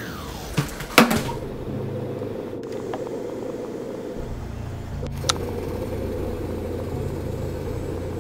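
A steady low mechanical hum, with a sharp click about a second in and a fainter click a little past the middle.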